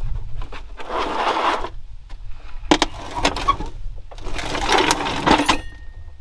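A power tool zipping bolts out in three short rattling bursts, with sharp metal clicks.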